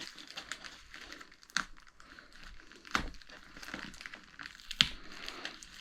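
A parcel's packaging being handled and opened: rustling and crinkling with a few sharp knocks, the clearest about one and a half, three and five seconds in.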